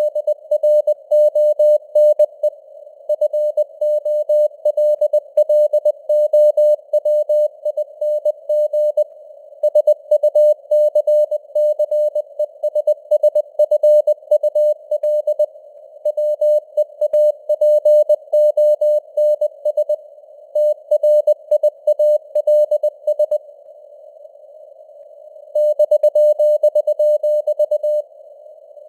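Morse code sent at 20 words per minute as a single pure tone keyed rapidly on and off, over a narrow band of simulated radio hiss, with the signal strength fading slowly up and down. There is a pause of about two seconds near the end where only the hiss is heard.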